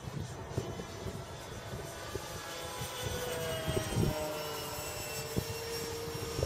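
Twin electric motors and propellers of a scale DC-3 model aeroplane whining as it flies overhead. The pitch drops gently as it passes.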